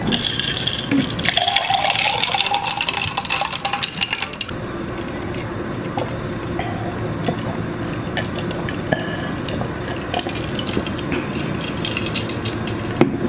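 Ice water poured from a plastic bottle into a plastic cup for about four seconds, with a slightly rising tone. Then drinking from the cup, with scattered clinks of ice.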